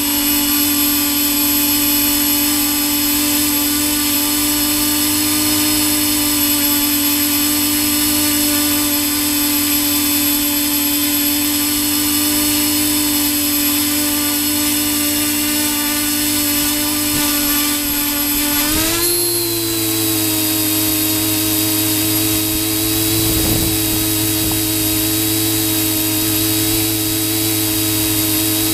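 Electric motors and propellers of a small FPV drone, heard from the camera on board: a steady multi-tone whine that rises in pitch about two-thirds of the way through as the throttle goes up for the climb, then holds steady at the higher pitch.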